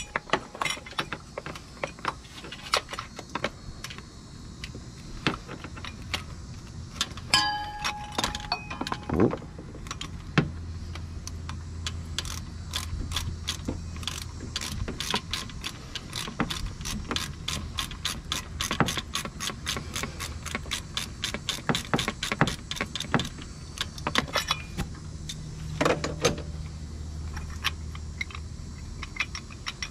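Hand ratchet clicking as it backs out a thermostat housing bolt, in short strokes at first and then a long fast run of even clicks through the middle.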